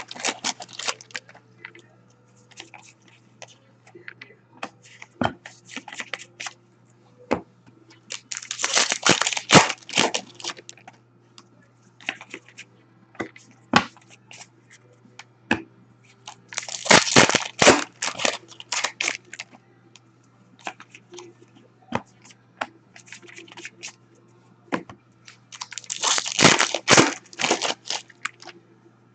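Hockey card pack wrappers being torn open and crinkled in four bursts, about eight or nine seconds apart, with light clicks and taps of cards being handled in between.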